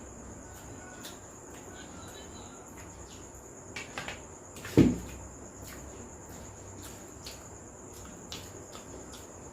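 Steady high-pitched cricket trill in the background, with faint scattered clicks and a single loud knock about five seconds in.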